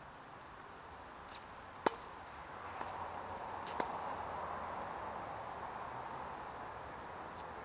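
Tennis balls struck by rackets on an outdoor hard court: sharp single pops, the loudest about two seconds in and a clear one near four seconds in from the near player's backhand, with fainter distant hits and bounces between. A steady background hiss runs underneath, swelling in the middle.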